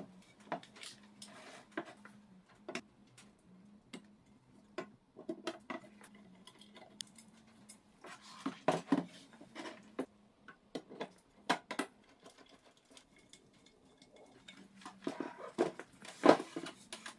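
Clinks, knocks and light scrapes of aluminium frame extrusions being handled and fitted onto a delta 3D printer's base, coming in scattered clusters. The loudest knock comes near the end.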